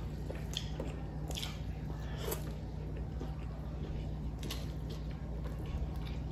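Close-up mouth sounds of people chewing a meal, with scattered soft crunches and clicks, over a steady low hum.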